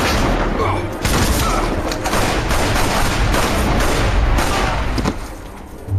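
Heavy overlapping gunfire, many rapid shots and booms running together in a shootout, over a film score. It thins out about five seconds in, then a loud shot comes near the end.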